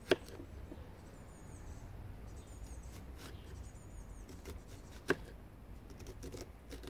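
Small kitchen knife cutting a red onion held in the hand over a wooden board, with two sharp clicks, one at the start and one about five seconds in, and a few fainter ones near the end.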